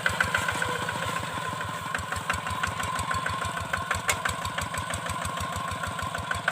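Single-cylinder Kubota diesel engine of a two-wheeled hand tractor running steadily: an even chugging of about six or seven beats a second, with a thin whine on top.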